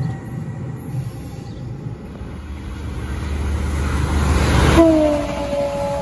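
Appenzeller Bahnen electric railcar on the Rorschach-Heiden line moving at the station, its rumble growing steadily louder for nearly five seconds. It cuts off suddenly, and a steady tone with several pitches follows, falling slightly.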